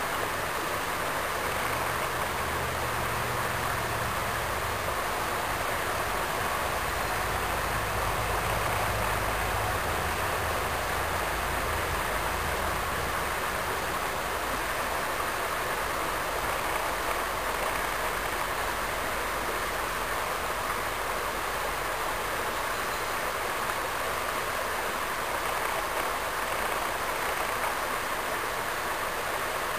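Steady rush of flowing water in a small, shallow creek.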